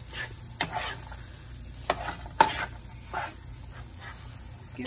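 A metal slotted spatula stirring ground beef filling in a nonstick skillet, scraping and clacking against the pan, over a low sizzle. There are several sharp clacks, the loudest about two and a half seconds in.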